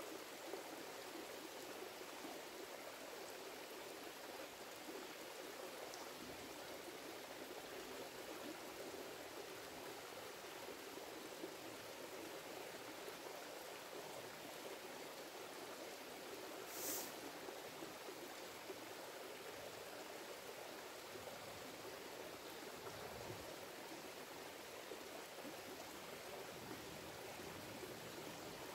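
Shallow creek flowing over rocks: a steady, faint rush of water. About two-thirds of the way through comes a single brief high-pitched sound.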